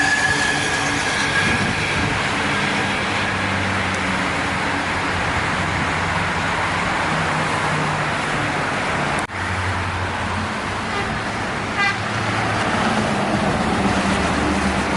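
Busy road traffic: heavy vehicles' engines running steadily under a constant roar of tyres and wind. A high tone fades out in the first second or so, and the sound drops out for an instant about nine seconds in.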